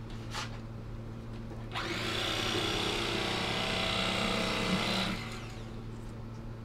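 Hamilton Beach electric carving knife running for about three seconds while it cuts through a bass fillet, then switched off; its blades are dull.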